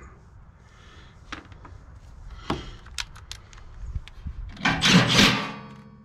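Hand tools and screws being handled on a wooden deck: scattered clicks and taps, then a loud scraping rattle just before five seconds in.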